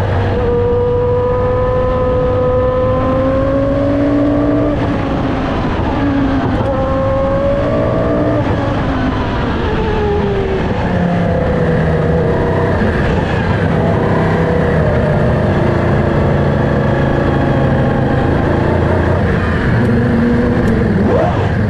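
Williams FW14B Formula 1 car's Renault V10 engine running at high revs. Its note climbs and drops several times in the first half, then settles at a lower, steadier note, with a few quick up-and-down blips near the end.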